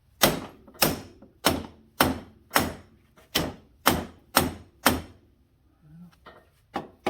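Dead-blow hammer struck nine times in steady succession, about two blows a second, beating a stuck suspension part of an ATV into place; a few lighter knocks follow near the end.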